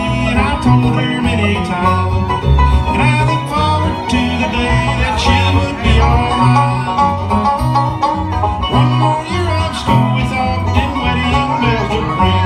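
Live bluegrass band playing an instrumental passage with no singing: guitars and fiddle over a steady beat of low notes.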